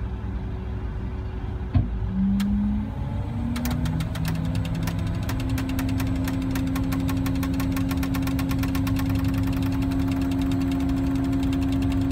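Mobile crane's diesel engine running, with a single knock just under two seconds in; the engine then revs up in steps and holds at higher speed with a fast, even clatter, as it works the lift.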